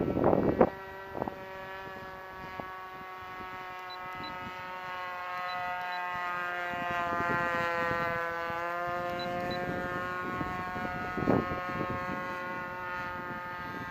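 Super Tigre .51 two-stroke glow engine with a Slimline Pitts muffler, driving a 1/6-scale Piper Pawnee RC plane in flight: a steady buzzing drone whose pitch rises and then falls around the middle. A short burst of noise on the microphone at the very start, and another about eleven seconds in.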